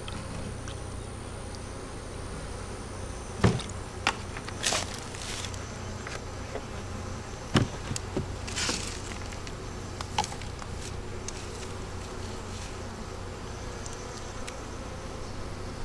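Honey bees buzzing steadily at a hive, with several sharp knocks and two brief rustling sounds between about three and ten seconds in.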